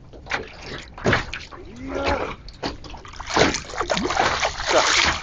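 Hooked sea bass thrashing at the surface as it is played to the boat, splashing water; the splashing is heaviest and most continuous in the last two seconds.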